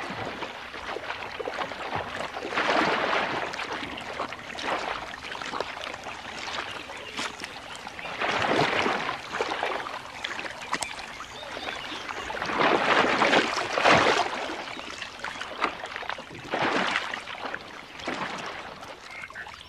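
Crocodiles thrashing and spinning on a carcass in a shallow, muddy pool, splashing and sloshing the water. The sound rises and falls in several louder surges.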